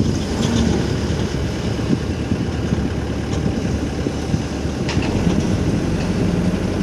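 Komatsu PC130-7 hydraulic excavator's diesel engine running under hydraulic load as the arm and bucket are worked, during a test after its hydraulic reducing valve was cleaned, with the machine's power judged good again. The engine note settles into a steadier hum about five seconds in.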